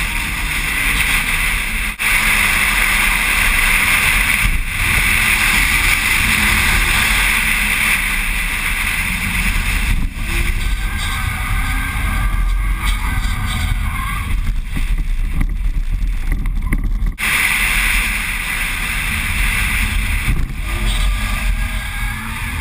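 Car engine running hard around a tarmac course, its pitch rising and falling, under heavy wind noise on the microphone, with a few short dips in level.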